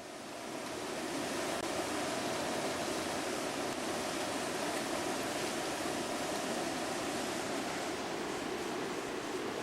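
Fast floodwater rushing in a steady, even noise, fading in over about the first second.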